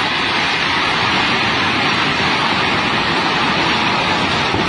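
River in heavy flood rushing past, a steady loud noise of fast water.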